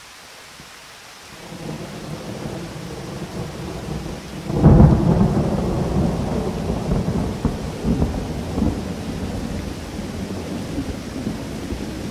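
A low rumbling noise over a steady hiss. It swells about a second in, is loudest in a sudden heavy rumble about four and a half seconds in, then rolls on unevenly.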